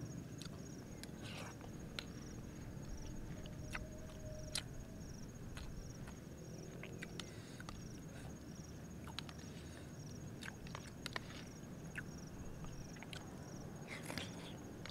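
Eating sounds: a metal spoon clicking and scraping in a plastic bowl of kapurung (sago porridge), heard as light, irregular clicks, with chewing. Behind it, a steady high night-insect trill pulses about one and a half times a second.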